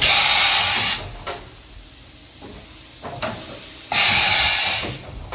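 Hwacheon Sirius 550's side-mount automatic tool changer swapping the spindle tool: two hissing air blasts, each about a second long, one at the start and one about four seconds in, with short mechanical clunks from the changer arm between them.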